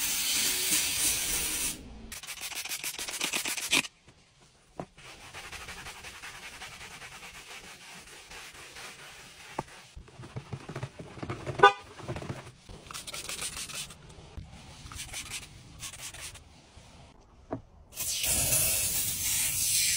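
Steam cleaner hissing in a long blast at the start and again near the end, with scrubbing and quieter cloth wiping over the steering wheel and dash in between, and a single sharp knock about halfway through.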